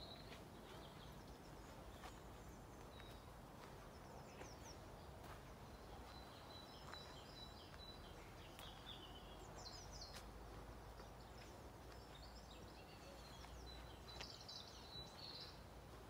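Faint birdsong: small birds giving short high chirps, trills and a thin whistled note, scattered and busiest in the second half, over a low steady hiss.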